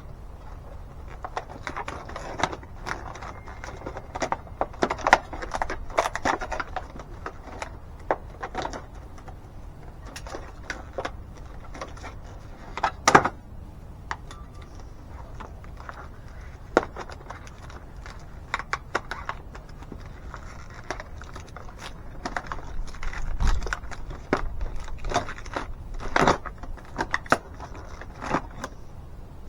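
A four-pack of ratchet straps being unpacked and handled: packaging crinkling and rustling, with the metal ratchet buckles and hooks clinking in irregular clicks and clacks.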